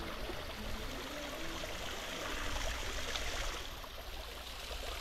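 Small waterfall: a thin stream of water trickling steadily over a rock ledge and splashing onto the rock below.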